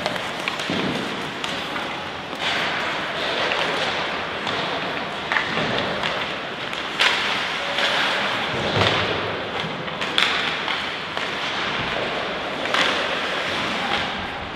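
Scattered thuds and knocks from play in a youth match, about half a dozen sharp impacts over a steady background din.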